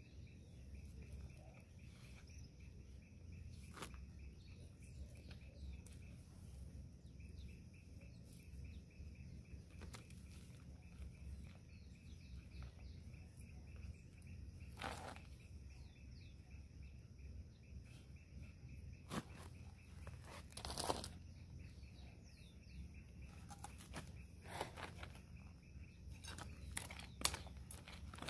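Faint crunches and rustles of hands pressing potting soil around a rose planted in a pot, with a few sharper scrapes near the end as a small hand hoe digs into the dirt. Faint bird chirps behind.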